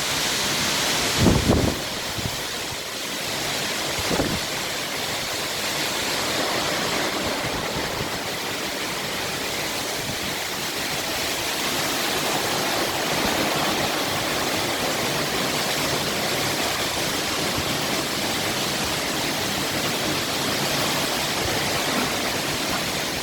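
Heavy thunderstorm downpour driven by strong gusts: a steady, dense rush of rain and wind. There is a short low thump about a second in and a smaller one at about four seconds.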